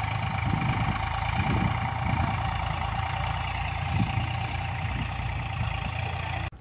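Eicher 485 tractor's three-cylinder diesel engine running steadily under load as it pulls a cultivator through the soil, a constant drone with a steady whining tone over it. The sound cuts off suddenly near the end.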